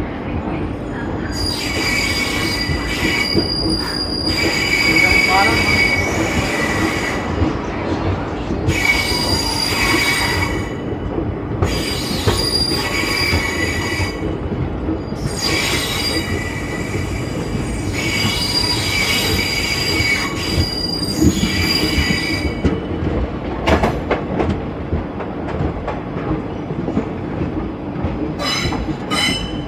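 Steel wheels of an ICF passenger coach on the 13211 Jogbani–Danapur Express squealing against the rails in high-pitched waves every few seconds, over the steady rumble of the running train. The squeal stops about three-quarters of the way through, leaving the rumble with a few sharp clicks near the end.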